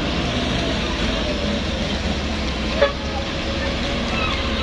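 Heavy truck engine running steadily under a continuous hiss of rain, with one short knock a little under three seconds in.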